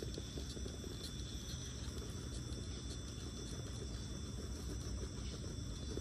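Insects chirring steadily in a high-pitched chorus, over a constant low rumble.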